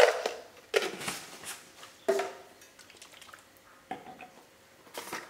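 Kitchen utensil clinking against a dish, about five separate knocks roughly a second apart, each with a short ring.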